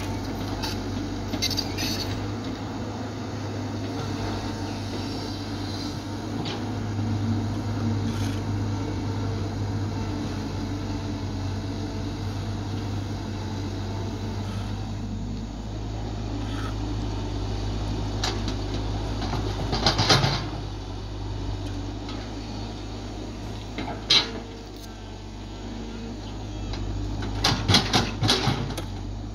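Caterpillar 312 excavator's diesel engine running with a steady low drone as it digs, with sharp knocks and clanks from the bucket working the soil and stones, the loudest about twenty seconds in and a quick cluster near the end.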